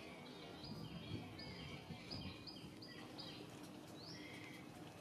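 Birds chirping: a quick run of short, high notes, some of them falling in pitch, over a faint outdoor hiss.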